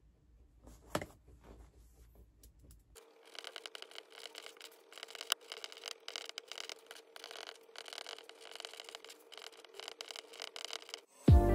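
Pen writing on paper: quiet, irregular scratching strokes that start about three seconds in, after a single faint click about a second in. Music comes in right at the end.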